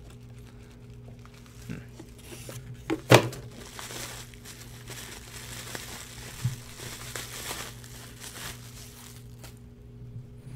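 Plastic bubble wrap crinkling and rustling as it is pulled off a fishing reel by hand, with a sharp snap about three seconds in. The crinkling dies away shortly before the end.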